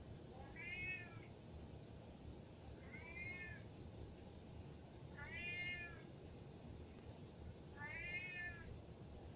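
Siamese cat meowing four times, each call rising and then falling in pitch, about two and a half seconds apart: demanding meows from a cat that wants to go upstairs.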